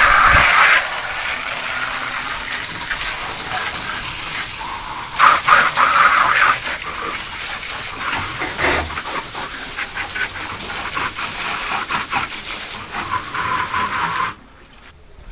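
Water spraying steadily from a hose in a washdown of refrigerator parts. It is louder for a moment at the start and again about five seconds in, and stops abruptly near the end.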